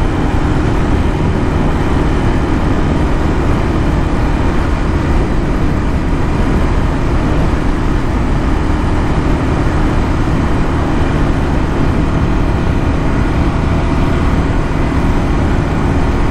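Royal Enfield Classic 350's single-cylinder engine running steadily at full throttle near its top speed, about 110 km/h, mixed with steady wind and road noise.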